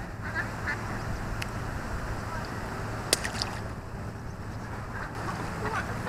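Ducks quacking, faintly at first, then a loud run of quacks right at the end; a single sharp click about three seconds in.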